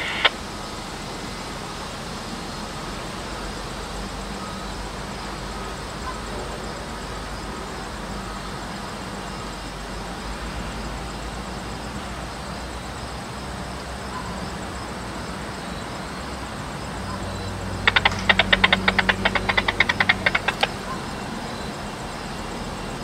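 Diesel locomotive engine running at low throttle, a steady low rumble as the work train creeps along. Near the end comes a rapid run of sharp clicks lasting about three seconds.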